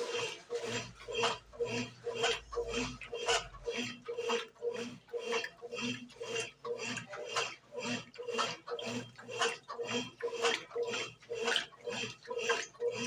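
Brastemp BWG11 washing machine agitating a load of bedding and towels: a motor hum and sloshing that pulse in an even rhythm of about two to three strokes a second.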